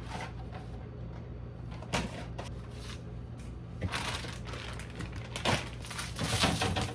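Food containers and bags being taken out of a fridge: scattered light knocks and rustling of plastic, busiest in the second half, over a steady low hum.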